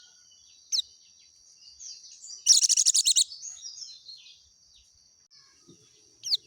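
Pleci dakun (white-eye) calling: a sharp downward-sweeping chirp about a second in and another near the end, with a loud, fast trill of about a dozen notes in the middle. A faint, steady high-pitched tone runs underneath.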